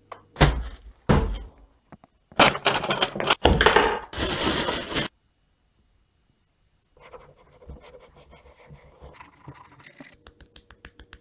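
Two thuds and a loud burst of smashing, messy noise, then after a short silence a table knife spreading butter on a slice of bread, scraping in quick strokes.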